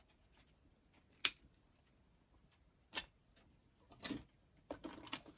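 Two sharp clicks about a second and three seconds in, then a short run of clicks and clatter near the end: small hand tools being handled and set down on a workbench during cable work on a hairdryer.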